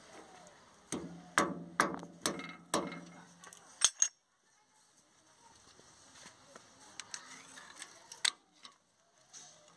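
A small hammer and steel hand tools clinking on metal: about seven sharp, ringing strikes in the first four seconds, then only light scattered clicks.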